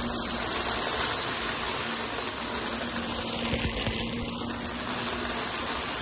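Shark Navigator upright vacuum cleaner running steadily with a constant hum, its suction a dense rushing noise as it is pushed over a rug, with a few faint ticks of small debris being sucked up.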